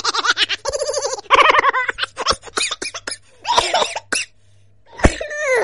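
People laughing and giggling in quick bursts, with a sharp knock about five seconds in followed by a cry that falls in pitch.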